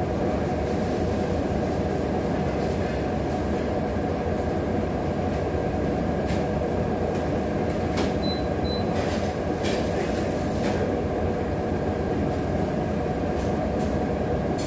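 Steady, loud background rumble of an eatery's room noise, unbroken throughout, with a few faint clicks and two short high beeps about eight seconds in.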